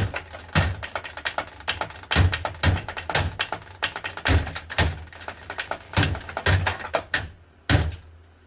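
A broken box fan running, its damaged plastic blades clattering against the grille in rapid, irregular clacks over a steady motor hum. The clatter stops a little before the end.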